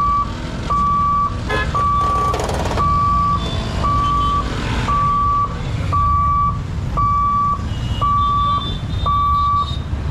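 Level-crossing boom barrier warning beeper giving a steady high electronic tone about once a second, each beep a little over half a second long, while the barrier lifts. Under it is the low running of idling motorcycle and small road-vehicle engines.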